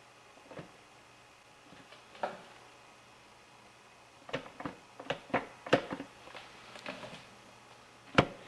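Sharp metallic clinks and knocks from a pry bar and steel parts on a Dodge NV4500 transmission's gears and case. A few scattered clicks come first, then a quick run of them between about four and seven seconds in, and another near the end.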